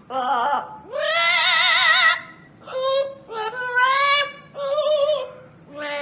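Yellow-naped Amazon parrot singing in an operatic style: several sung phrases with short breaks, the longest held note about a second in wavering with a wide vibrato.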